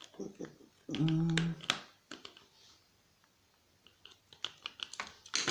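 Small clicks and taps of a screwdriver and the plastic cordless phone handset being handled while tiny screws are undone. About a second in, a short steady low hum lasts about half a second and is the loudest sound.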